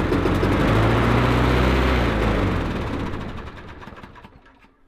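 Briggs & Stratton lawnmower engine running for about two seconds, then slowing and dying away. It will not keep running, a fault the owner traces to a cheap carburettor gasket and diaphragm curled up by fuel.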